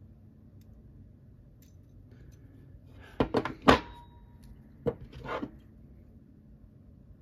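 Small metal gun parts knocking and clattering on a wooden workbench as they are set down and picked up: a quick cluster of sharp knocks about three seconds in, the loudest, and a second, lighter cluster about five seconds in.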